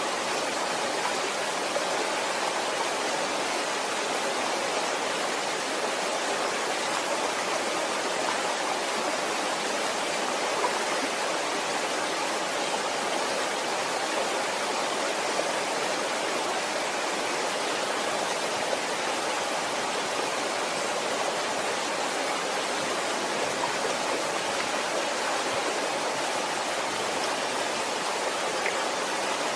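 Waterfall, its water falling and splashing in a steady rushing noise with a few faint drips and splashes.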